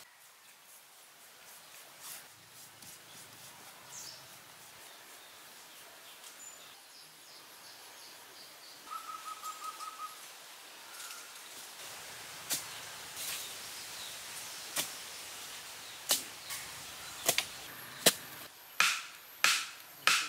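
Forest ambience with birds; about halfway through, a quick run of short, high chirps. In the second half, a series of sharp, irregular knocks, louder toward the end: wooden stakes being pounded into the ground.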